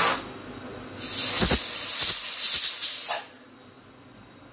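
Compressed-air blow gun blasting coolant and chips off a freshly machined aluminium part: a brief burst right at the start, then a longer blast of about two seconds that cuts off.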